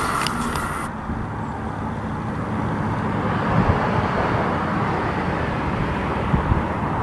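Train noise with clicks from the wheels cuts off abruptly about a second in. A steady low outdoor rumble with a few soft low thumps follows.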